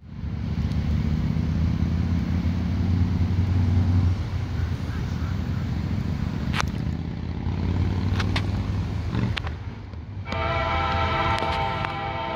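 Freight train's diesel locomotives running with a low, steady rumble and a few sharp clicks. About ten seconds in, the lead locomotive, an EMD SD75M, starts sounding its multi-chime air horn, a steady chord.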